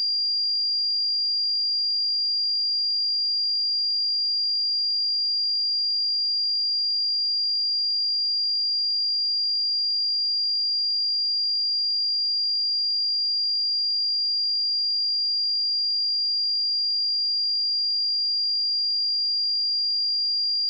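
A pure 4783 Hz sine-wave test tone, a single steady high-pitched tone held at constant level.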